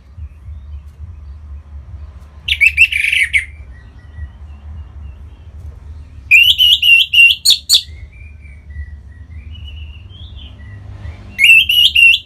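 Orange-headed thrush singing: three loud bursts of quick repeated notes, with soft, quieter warbling between them.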